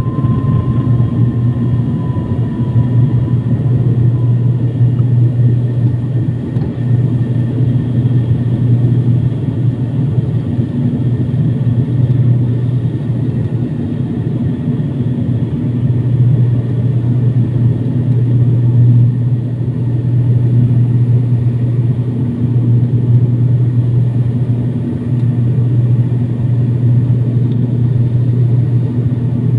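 Cabin noise of an ATR turboprop airliner climbing just after takeoff, heard beside the propeller: the engines and propellers give a loud, steady drone with a deep hum. A thin high whine fades out in the first few seconds.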